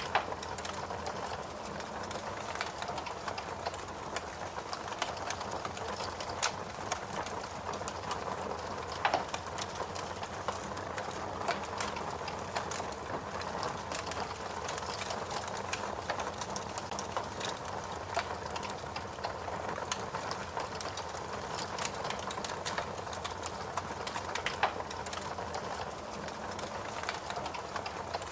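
Wood fire burning with a steady hiss, with frequent irregular crackles and sharper pops scattered throughout.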